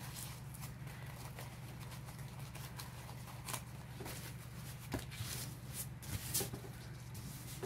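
Soft rustling and a few brief crinkles of a sheet of kneaded momigami paper as it is opened out from a crumple and smoothed flat by hand.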